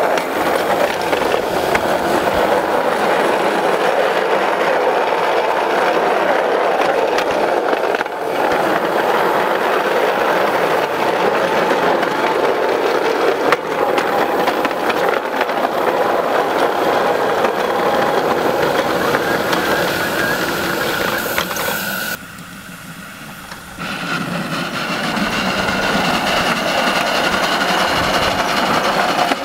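Maxitrak Alice miniature live-steam locomotive and its riding car running along the track, with a steady clatter and rumble of wheels on the rails and an odd knock over the joints. The noise drops away briefly about three quarters of the way through.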